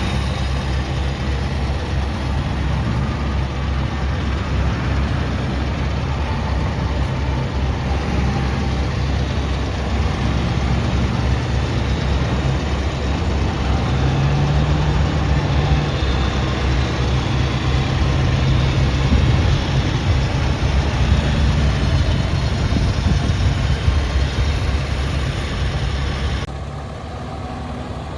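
McCormick Farmall Cub tractor's small four-cylinder flathead engine idling steadily. Near the end the sound drops abruptly to a quieter, duller level.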